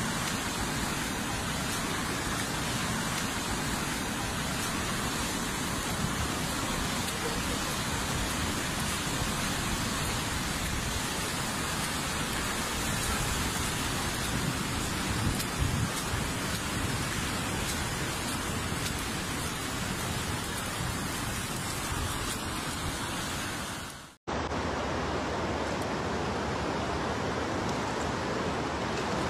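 Steady rushing noise of fast-flowing floodwater mixed with heavy rain. About 24 seconds in it cuts off for an instant and a different recording of similar water-and-rain noise follows.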